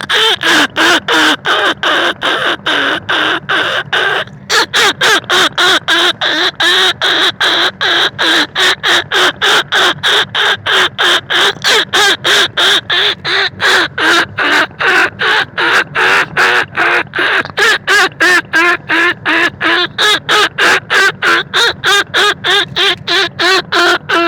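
Rat-luring call for rice-field rats and bandicoot rats: a harsh, squeaky call repeated rapidly, about three times a second, with one brief break about four seconds in.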